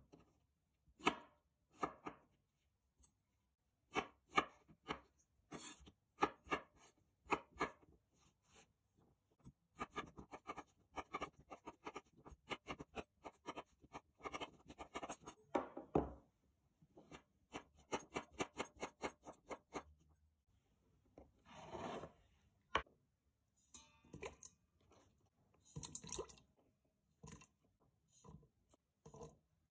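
Chef's knife cutting peeled potatoes on a bamboo cutting board: a long run of short knocks as the blade goes through the potato and meets the wood, at about three strokes a second in the middle. A little after the middle there is a brief scrape, and the last few seconds hold a few scattered knocks.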